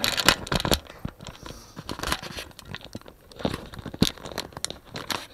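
Handling noise from a small action camera being moved and set onto a tripod: irregular knocks, clicks, scrapes and rustling close on the microphone.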